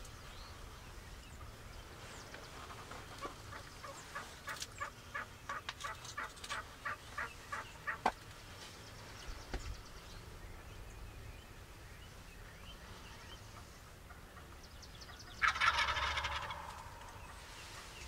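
Wild turkeys calling: a quick run of short calls about three to eight seconds in, then the loudest sound, a rattling gobble from a tom lasting about a second and a half near the end.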